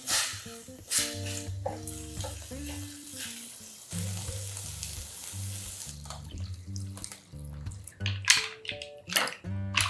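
Chopped kimchi sizzling as it fries in a small brass ramen pot and is stirred with chopsticks, the hiss swelling for a couple of seconds in the middle. Near the end, a few sharp clacks as mussel shells are dropped into the pot. Background music plays throughout.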